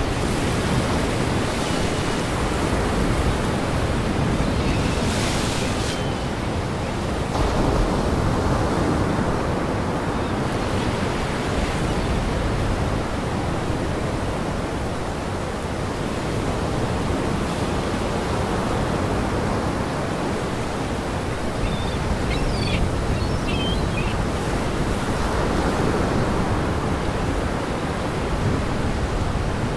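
Wind-driven lake surf: a steady rushing noise of waves breaking and washing over a rock breakwall, with gusting wind, swelling and easing in slow surges.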